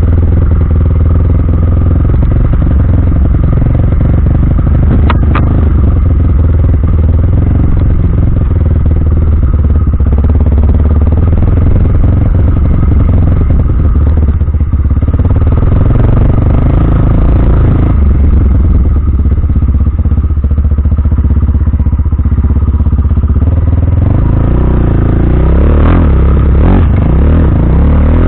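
Off-road motorcycle engine running loud and close on a bike-mounted camera during a ride over a rough trail, with clatter over the bumps. The engine revs up and down near the end.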